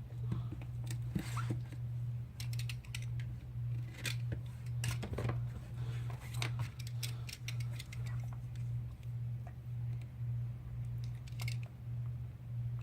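Strips of adhesive tape being handled and cut on a phone frame: scattered small clicks, snips and crinkles, over a steady low hum.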